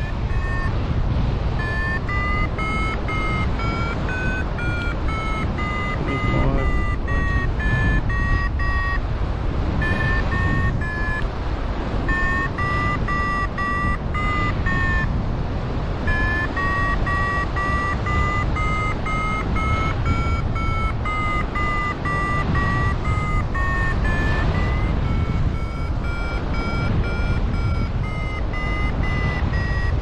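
Paragliding variometer beeping in a quick train of short beeps whose pitch rises and falls with the climb rate, signalling lift in a thermal, breaking off briefly a few times. Wind rushes over the microphone underneath.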